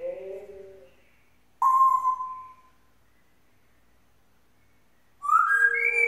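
African grey parrot vocalising: a brief talking or singing voice at the start, then a loud whistle about a second and a half in that holds and sinks slightly for about a second. After a pause, a rising whistle starts near the end.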